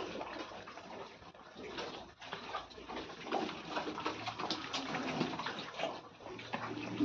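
Pigs feeding, with irregular wet slurping and splashing noises.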